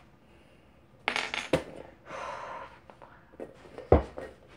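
Metal finger rings being taken off and set down, with light clinks and a rustle of handling, then a single dull thump near the end.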